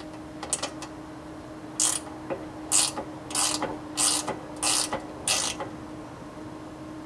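Short ratchet-like metallic strokes from work on the RV awning arm's hardware as it is reattached: six in a row, about two-thirds of a second apart, after a few lighter clicks. A faint steady hum runs underneath.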